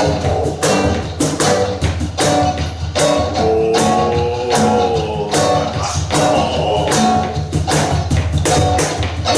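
Live band playing an instrumental passage between sung verses: a steady beat of percussion hits over sustained guitar and bass notes.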